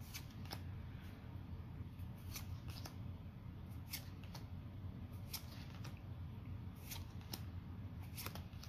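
Pokémon trading cards being flipped through by hand, each card slid off the stack with a short papery swish and flick, roughly once a second at an uneven pace.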